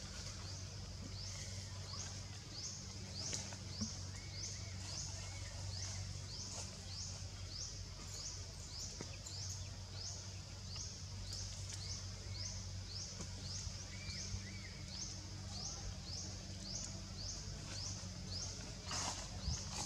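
A high chirping call repeated evenly, about two falling chirps a second, from an unseen insect or bird in the surrounding trees, over a steady low hum. A brief rustle near the end.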